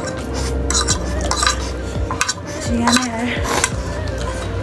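Forks scraping and clinking against plates in a string of short, irregular clicks as the last of the noodles are shovelled off them, the plates being scraped clean.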